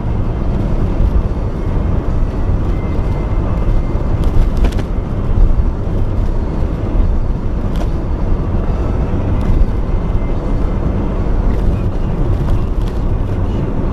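Steady low rumble of a vehicle on the move: engine, road and wind noise.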